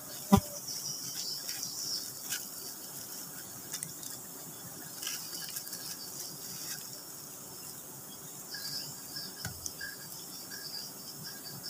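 Insects chirring in a steady high band throughout, with one sharp knock about half a second in, the loudest sound, and scattered lighter clicks and rustles from handling.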